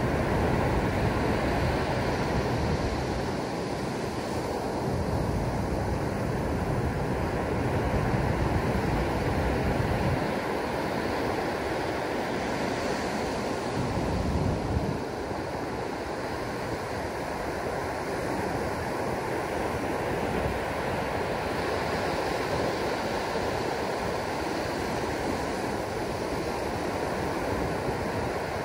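Ocean surf breaking and washing up the beach: a steady rush of noise that swells with low rumbles every few seconds.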